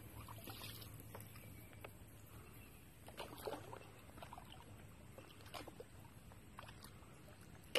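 Quiet kayak paddling: a paddle dipping and dripping water in a few soft splashes, over a faint low hum.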